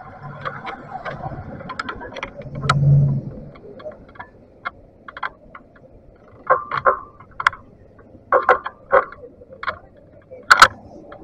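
Muffled city street traffic heard through a waterproof camera housing, with a low engine hum swelling about three seconds in. Then comes a string of short sharp clicks and knocks, the loudest near the end.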